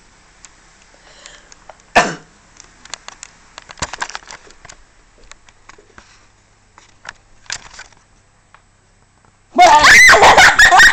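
A person sneezes once, sharply, about two seconds in, followed by faint rustling and clicks. Near the end a very loud, distorted sound with shifting pitches suddenly starts and runs on.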